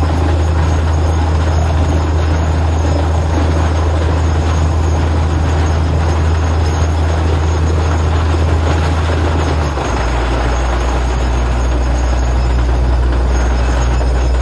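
Truck-mounted borewell drilling rig running steadily: a loud, low diesel drone with a broad hiss of water and air blowing out of the borehole. About ten seconds in the engine note drops to a lower pitch.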